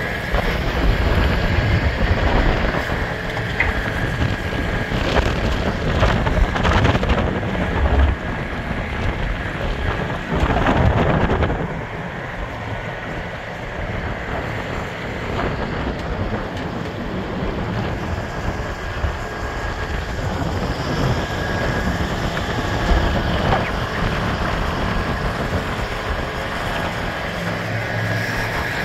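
Strong wind buffeting the microphone in gusts, with a heavy low rumble, louder in the first half. A faint steady high tone runs underneath.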